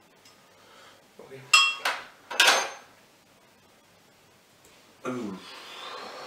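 A metal utensil clinking against a glass blender jar, three sharp ringing knocks about a second and a half in, as food is scraped off into it. A short voice sound follows near the end.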